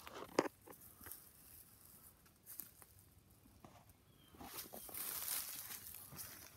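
Footsteps crunching and rustling through dry leaf litter and low plants on a woodland floor, quieter for a stretch in the middle and louder again toward the end.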